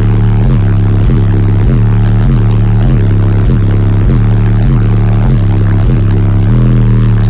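Car audio subwoofers playing a bass-heavy track at high volume: a sustained deep bass note with a rhythmic pulse about every 0.6 seconds.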